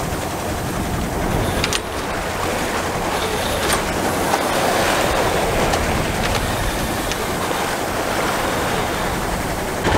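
Rushing and splashing of choppy seawater along a moving sailboat's hull, with wind on the microphone. A low steady hum runs underneath.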